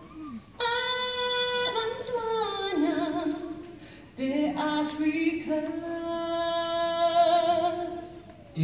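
A school choir singing a cappella: two long phrases of drawn-out, wavering held notes, the first starting about half a second in and the second after a short break around four seconds in.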